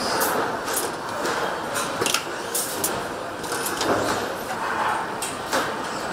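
Engine assembly-line factory noise: a steady machinery rush, with scattered sharp clicks and clinks of metal parts and tooling every second or so.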